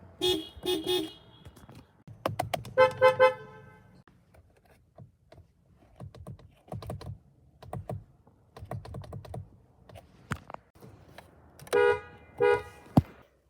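Car horns giving short honks: two quick beeps, then three about three seconds in, then two more near the end, with scattered clicks and knocks in the pauses.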